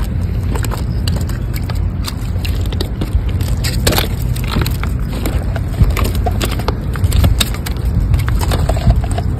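Low wind noise buffeting the microphone, with scattered crunches, clicks and scrapes of boots and gear on rough, shell-encrusted shoreline rocks.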